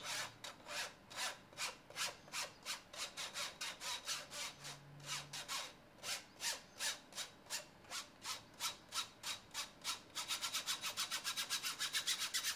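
A metal spoon scraping flour through a metal mesh sieve, a rhythmic rasping of about three strokes a second that quickens near the end.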